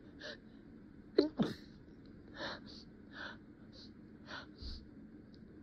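A person's stifled sneeze about a second in, a sharp catch of the voice and then a short explosive burst held back, followed by several short breathy breaths.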